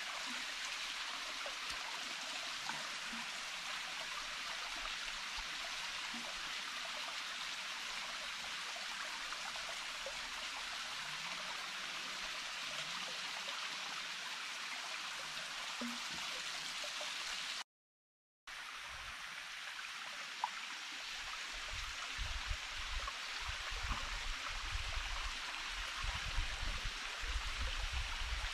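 Small forest stream running, a steady rush of flowing water. It drops out for a moment in a sudden gap of silence about two-thirds through, and after that a low, uneven rumble joins it.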